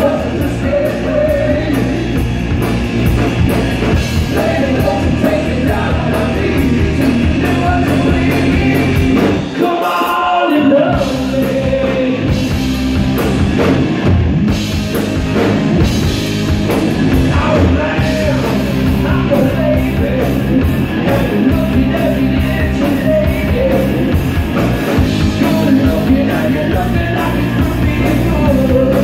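Live rock band playing: electric guitar, bass guitar and drum kit. About ten seconds in the bass and drums drop out for a moment, leaving a guitar line, before the full band comes back in.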